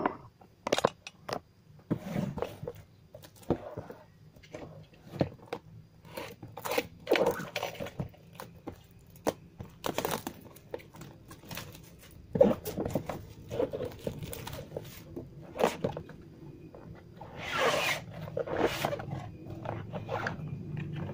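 Plastic shrink-wrap being torn and crinkled off a boxed microphone: irregular crackles and rips. Near the end the cardboard box is handled and opened, with louder rustling.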